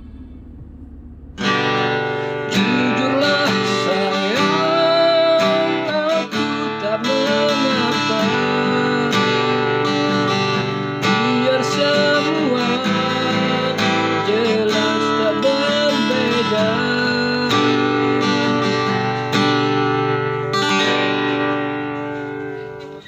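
Music led by guitar, coming in about a second and a half in and fading out near the end.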